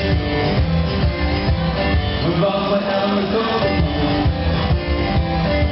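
Music with a plucked guitar and a bass line, in a country style.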